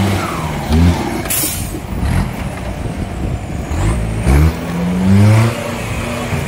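Off-road jeep's engine revving in short bursts, its pitch rising and falling as it is worked up a steep dirt slope under load. There is a brief hiss about a second and a half in.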